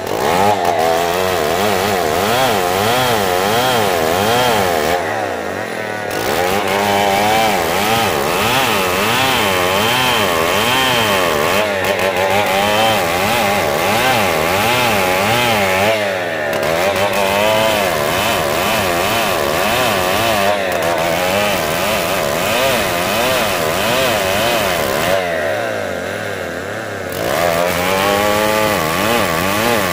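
Two-stroke chainsaw running hard as it rips lengthwise along a felled damar log, its engine pitch wavering up and down as the chain bites. Three times it eases off, briefly around five and sixteen seconds in and longest near the end, then revs back up into the cut.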